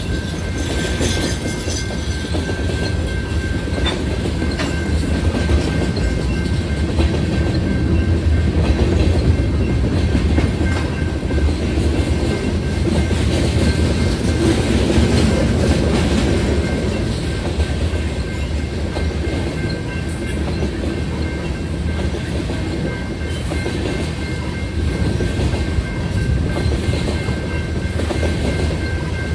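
Freight train's cars rolling past at a grade crossing: a steady low rumble with rhythmic clickety-clack of wheels over rail joints, over a faint steady high tone.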